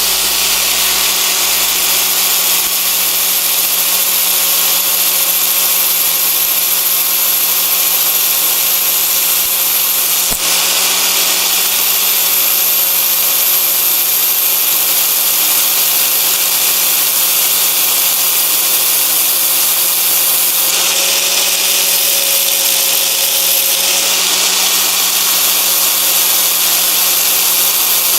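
Angle grinder with a flap disc running steadily against the end of a stainless steel bolt spun by a power drill, grinding the lathe-cut end into shape: a steady motor whine over a hiss of abrasion. One short click about ten seconds in.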